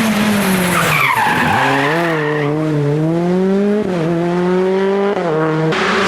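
Rally car on a special stage braking into a corner, its tyres squealing, then accelerating away with the engine revving up through the gears, with quick upshifts about four and five seconds in.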